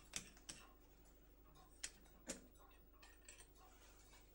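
Faint, irregular clicks and ticks, about five of them, from a watchmaker's belt-driven lathe as its pulleys and belts are handled, over a low steady motor hum.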